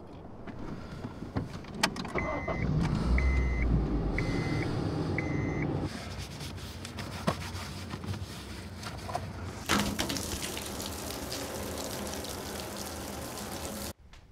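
Car interior sounds: a few clicks and handling noises, a car's warning chime beeping four times about a second apart, and a low engine rumble near the start of the chime. Near the end a loud steady hiss starts suddenly and cuts off abruptly.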